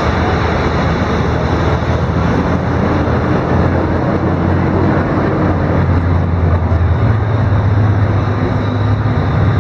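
Steady road traffic noise from cars driving past on a city street, with a low hum that grows a little louder about seven seconds in.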